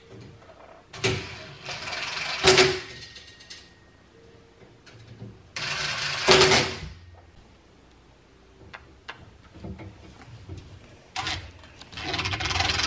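Cordless drill driving and tightening screws into a metal door bracket of a cabinet pull-out. The motor runs in short bursts of a second or so, three or four times, with pauses between.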